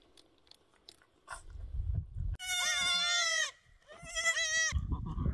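A goat bleating twice: one long call, then a shorter wavering one, over a low rumbling noise.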